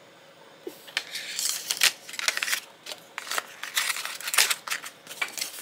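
Cardboard and paper packaging of a new phone's box being handled and opened: a busy run of crisp rustles, scrapes and taps starting about a second in.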